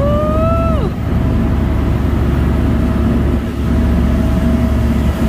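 Fishing boat's engine running steadily while underway, with the rush of wind and water from the wake. A voice calls out once, drawn-out, in the first second.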